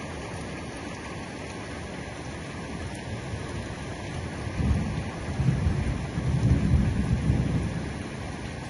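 Heavy rain falling steadily, with a low rumble of thunder that swells from about halfway through, rolls for about three seconds and fades near the end.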